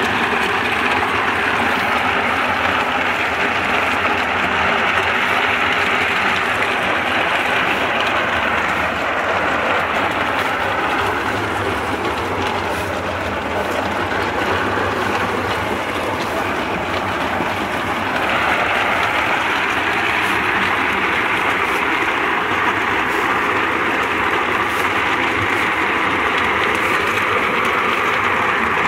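Walnut peeling machine running steadily: its electric-motor-driven drum tumbles green-husked walnuts against the grater-lined tank under a water spray. The noise is continuous and grows brighter about two-thirds of the way through.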